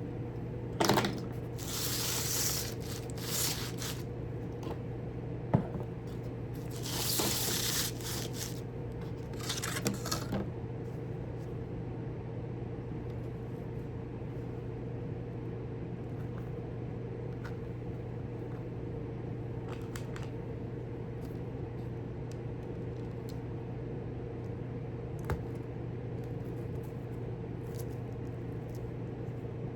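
Hands working on small model parts at a workbench: three short rustling, hissing bursts in the first ten seconds, then scattered small clicks and taps, over a steady electrical hum.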